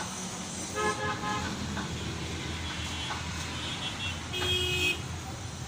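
Steady low engine rumble with vehicle horns sounding over it: a few short toots about a second in and a longer toot near the end.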